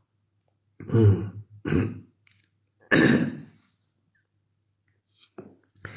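A man coughing and clearing his throat, three short coughs about a second apart in the first half: the lingering cough left by a COVID infection.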